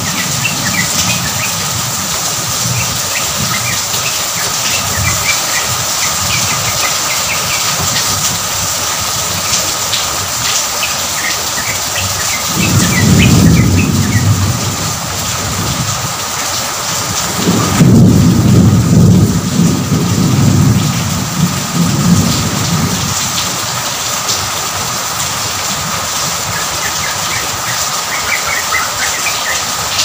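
Steady heavy rain with thunder rumbling twice: a short roll about twelve seconds in and a longer one from about eighteen to twenty-two seconds. Short high chirps sound over the rain now and then.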